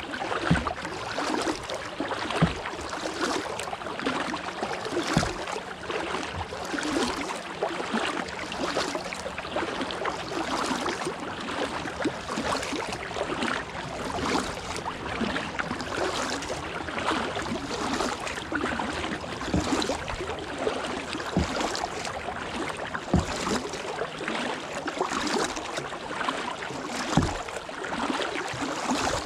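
Kayak paddling on calm water: the paddle blades dipping, splashing and dripping in a steady rhythm of strokes, with a few dull knocks scattered through.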